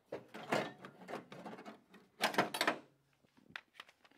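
Knocks, clunks and rattles of tools being handled while an impact driver is fetched, the loudest clatter a little after two seconds in, with a few light clicks near the end.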